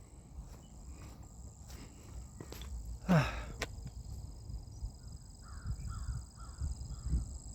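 Steady high-pitched insect drone, with one short low voiced grunt or hum falling in pitch about three seconds in and a few faint bird calls later.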